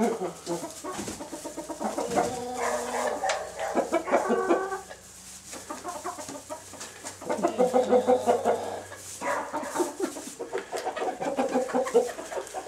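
Chickens clucking and calling in short repeated bursts, with a quieter lull around the middle.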